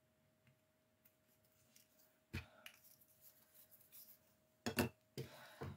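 Handling noises of craft tools on a tabletop: a sharp knock a little over two seconds in, a few light ticks and rustles, then two louder clicks and a brief rustle near the end, as a liquid glue bottle is set down and metal tweezers are picked up.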